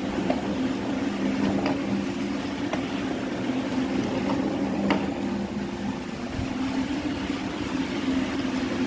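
Carpet washing machine running with a steady motor hum, with a few faint clicks.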